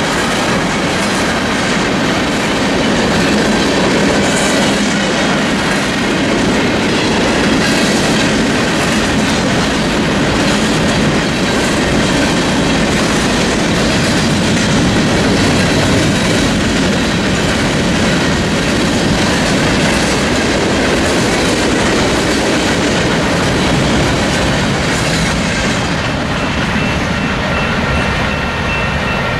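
Freight cars of a Union Pacific manifest train rolling through a grade crossing: steady, loud wheel-on-rail noise with clickety-clack over the rail joints. A few steady high-pitched tones come in near the end.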